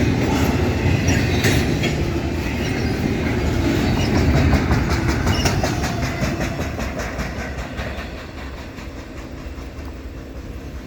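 Freight train's steel wheels clattering over the rails as the slowing train moves away, the rumble fading over the last few seconds.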